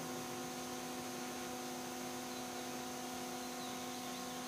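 Steady electrical hum from a sound system, several constant tones over a faint hiss, unchanging throughout.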